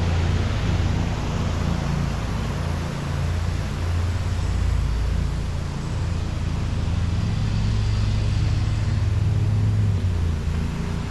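A vehicle engine running steadily with a low rumble, under a rushing noise.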